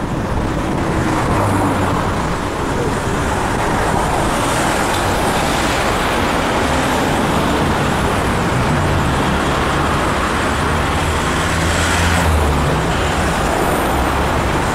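Road traffic on a busy city street: cars and a pickup truck driving past close by, engines and tyres on asphalt in a steady wash of noise, with a low engine drone strongest through the middle.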